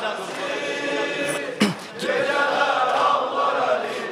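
Mourners chanting the refrain of a slow Azerbaijani mourning elegy (noha) together, in many overlapping voices, with a brief break about one and a half seconds in.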